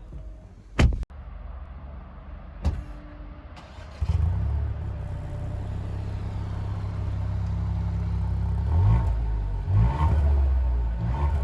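A sharp thump, then a Ford Puma ST's 1.5-litre three-cylinder turbo petrol engine starting suddenly and settling into a steady idle. Near the end it is blipped with three short revs.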